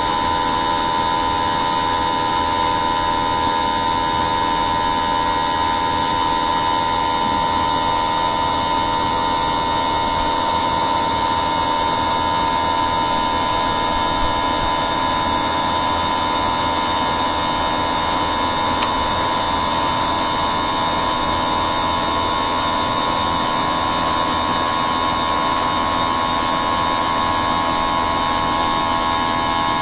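Steady machine hum with a constant whine near 1 kHz and several fainter steady tones over an even noise, unchanging throughout.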